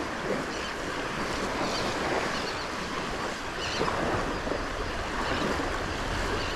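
Small waves washing onto a sandy beach on a flat, calm sea, a steady hiss of surf.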